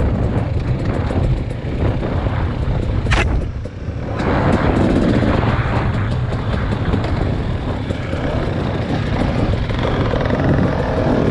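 A vehicle's motor running steadily with a low rumble, with one brief sharp noise about three seconds in.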